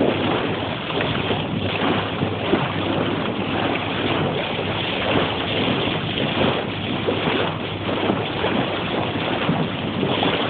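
Steady rush of water from the bow wave of a moving boat, mixed with wind buffeting the microphone.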